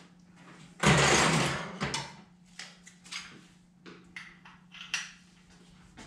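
A breaker bar and socket being fetched and handled: a loud rattling scrape of tools about a second in, then scattered light metal clicks and clinks as the socket and breaker bar are fitted onto the crankshaft bolt of a small-block Chevy engine.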